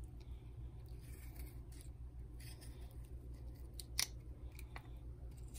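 Kitchen knife cutting and scraping notches into a raw carrot held in the hand: a scattering of short, crisp cuts, with one sharp click about four seconds in that is the loudest.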